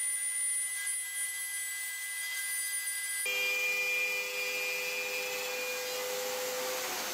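Plunge router with a dovetail bit running steadily as it cuts a groove in MDF, with a shop vacuum pulling dust off through a hose on the router base. The whine changes pitch abruptly about three seconds in.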